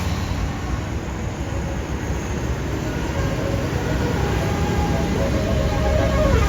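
A large bus drawing near, its engine rumble and road noise growing steadily louder. Faint notes of a multi-tone telolet horn start to sound in the last couple of seconds.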